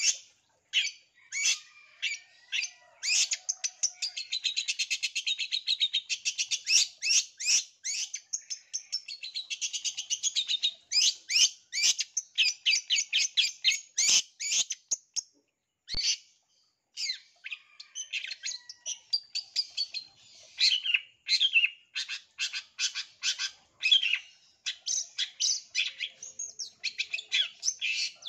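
Long-tailed shrike (cendet) singing a rapid, continuous string of sharp high notes mixed with buzzy chattering passages. It breaks off briefly about halfway through, then carries on.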